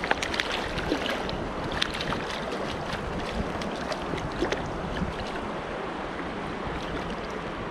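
A trout splashing and thrashing at the surface as it is drawn into a landing net, over the steady rush of creek water. Most of the splashes fall in the first two seconds, with a few more about four and a half seconds in.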